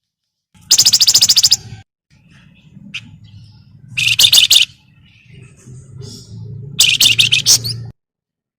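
Wergan Jawa (flamboyan) songbird chattering: three loud bursts of fast, rattling high notes, each about a second long, with a few soft calls between them. A low hum runs underneath.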